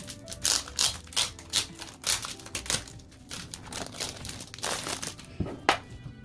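Packaging crinkling and rustling as a merch package is opened by hand, in a quick run of short crackly bursts, over faint background music.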